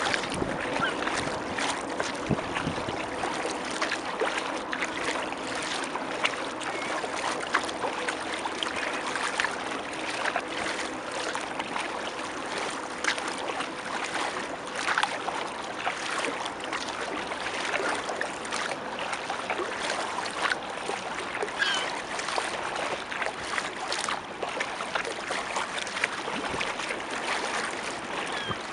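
Kayak paddle dipping and water splashing, trickling and lapping against the hull as the kayak is paddled along the river, with many small irregular splashes. A faint steady hum sits underneath in the first half.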